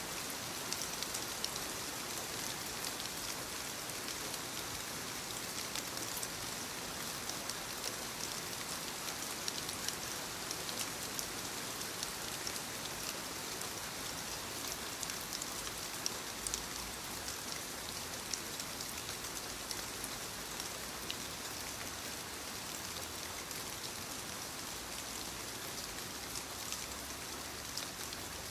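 Light rain pattering on leaves: a steady hiss with many small, distinct drop ticks.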